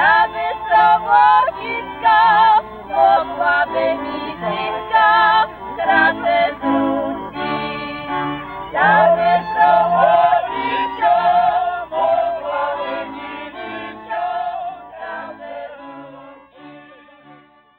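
Polish góral highland folk music from a string band, fiddles playing over a bowed bass. The music fades out over the last few seconds.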